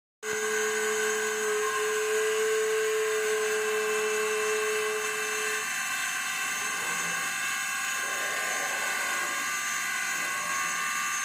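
CNC router spindle driving a 6 mm carbide end mill, milling 304 stainless steel: a steady high-pitched whine made of several tones. A lower tone drops out about halfway through, and the cutting sounds rougher after that.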